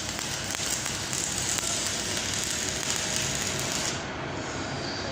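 Electric arc welding: the arc's steady hiss, which stops about four seconds in.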